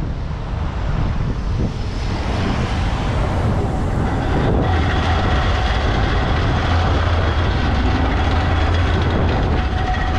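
Škoda 15T articulated low-floor tram running past close by on the rails, with a low steady hum and a faint motor whine that grow louder as it comes alongside.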